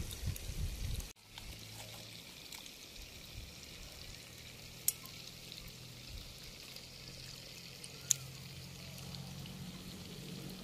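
Faint steady background hiss with a low hum, broken by two sharp clicks about five and eight seconds in.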